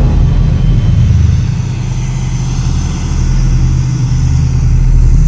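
Diesel engine of a large Hitachi amphibious excavator running steadily with a deep, even rumble.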